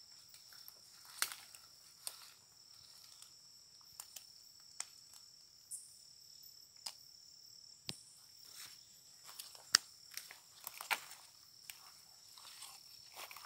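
Rainforest insects droning steadily at a high pitch, with irregular sharp crackles and snaps of footsteps on dry leaf litter; the loudest snap comes about ten seconds in.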